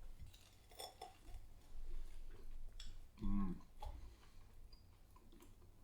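Faint sounds of someone eating a chicken wing: quiet chewing with scattered small clicks, and a short hummed "mm" about three seconds in.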